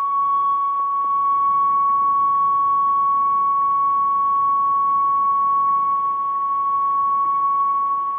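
A loud, steady electronic tone at one high pitch, like a test-tone beep, swelling up at first and dropping away near the end.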